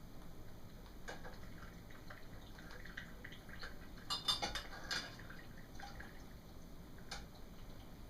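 Dishes and utensils clinking and knocking as they are handled, a few light clicks and a cluster of louder clatters about four to five seconds in.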